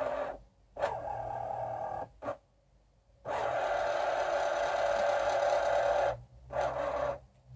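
Excalibur Phantom Force chess computer's motorized magnet carriage under the board whirring in stop-start runs as it slides a captured piece to the side of the board: several short runs and one longer run of about three seconds in the middle, with brief silences between them.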